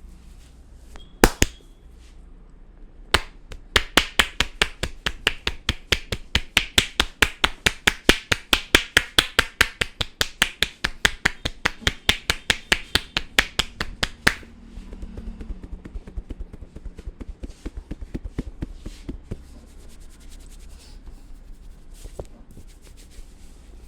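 Barber's head massage: a run of rapid, even, sharp strikes at about five a second, lasting about ten seconds and then stopping, followed by softer scattered taps and rubbing.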